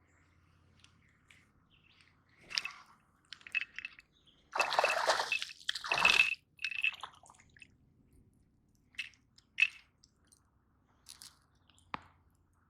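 Water splashing, loudest for about two seconds a little before midway, with scattered smaller splashes and clicks around it: a small bass splashing at the surface as it is hooked and brought in.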